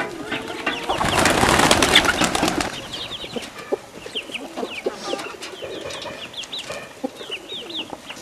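A farmyard flock of chickens and pigeons: a burst of wing flapping about a second in, followed by a run of short, high chirps from the birds.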